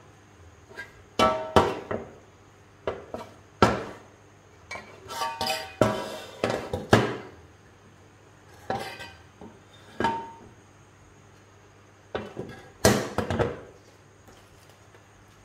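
Cast-aluminium scooter CVT (belt-drive) cover being handled on a concrete floor: irregular clusters of knocks and clinks, some with a short metallic ring, with bits of scraping between.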